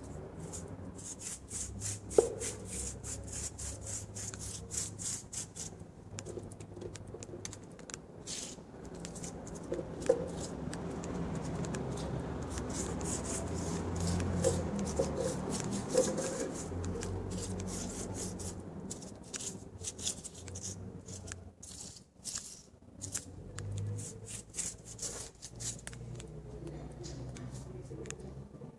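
Paintbrush scrubbing over a painted surface in quick repeated scratchy strokes, with two sharp knocks, about two seconds and ten seconds in.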